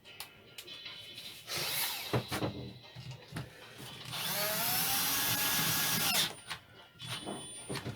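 Cordless drill-driver running for about two seconds midway, its motor pitch rising as it spins up, as a screw is driven home; clicks and knocks of parts being handled before and after.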